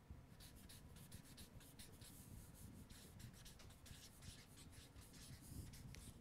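Felt-tip marker writing on flip chart paper: faint, quick scratchy strokes of the tip across the paper as letters are drawn.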